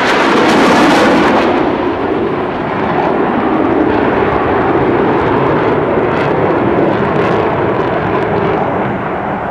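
F/A-18 Hornet jets flying past, the noise of their twin General Electric F404 turbofan engines loudest in the first second and a half, then a steady roar that eases a little near the end.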